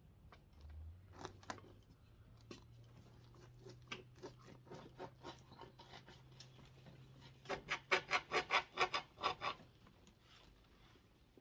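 A knife sawing through a grinder sandwich: scattered scrapes and clicks at first, then a quick run of about a dozen back-and-forth sawing strokes near the end.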